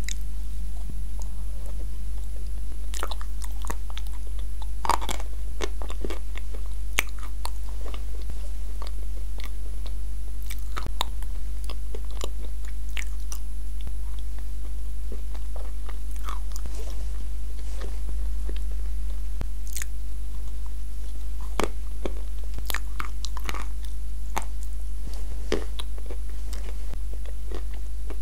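Close-miked biting and chewing of dry edible clay pieces coated in a creamy clay paste, with scattered sharp crunches, over a steady low hum.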